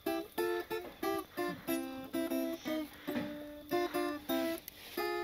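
Acoustic guitar played solo: a melody of plucked notes in short phrases, each note starting sharply and ringing briefly.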